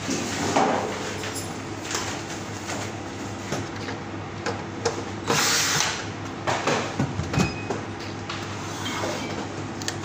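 Clicks, knocks and a brief rustle from hands handling the wiring and connectors inside an opened microwave oven, over a steady low hum.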